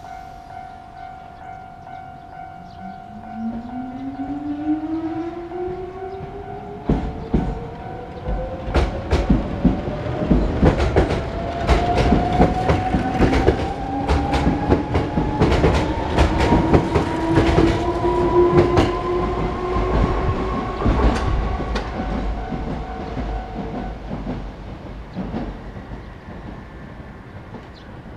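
A Japanese level-crossing alarm rings steadily while an electric train passes. The train's motors whine, rising steadily in pitch as it picks up speed, and its wheels clatter over the rail joints in a dense run of clacks through the middle. The crossing alarm stops near the end.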